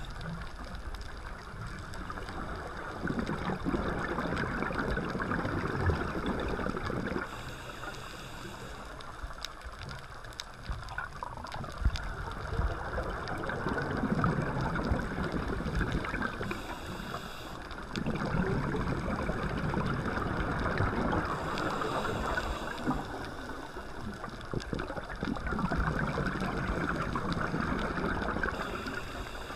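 Scuba diver breathing through a regulator underwater. Long bubbling exhalations of a few seconds each come roughly every six to seven seconds, with a shorter, higher hiss of inhalation between them.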